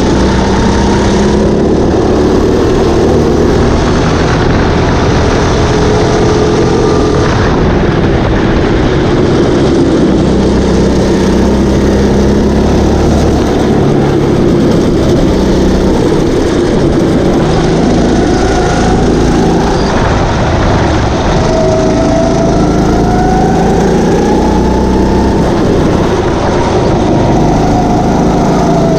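Go-kart engines running at race pace, loud and continuous, their pitch repeatedly rising and falling as the karts accelerate and back off, with a couple of rising revs in the second half.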